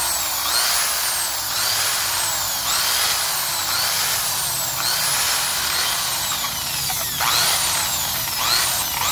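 Handheld electric rotary tool spinning a wire cup brush against the aluminium cylinder block of a Yamaha Sniper 135, scrubbing carbon and gasket residue off the metal. A steady high motor whine mixed with wire scratching, its pitch rising and falling about once a second.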